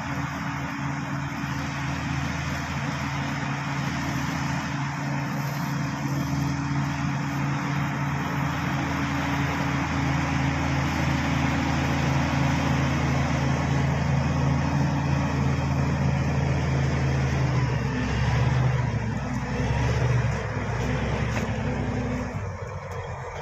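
Bulldozer's diesel engine running steadily under load, a constant low hum with a dense mechanical noise over it. It grows louder over the first half and drops away near the end.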